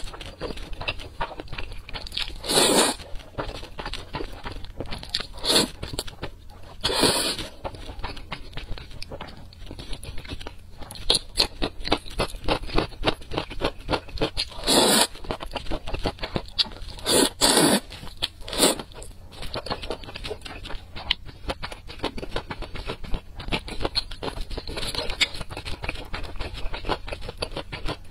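Close-up mouth sounds of noodle eating: wet chewing and small mouth clicks throughout, with about six loud slurps of saucy noodles.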